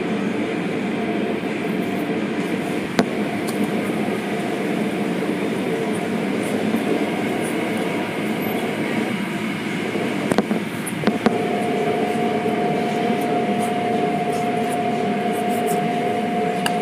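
Automatic car wash running: a steady, loud rumble and rush of the machinery as hanging soft-cloth strips sweep across a car. A sharp knock comes about three seconds in and a few more around ten seconds in, and a steady whine joins about eleven seconds in and holds.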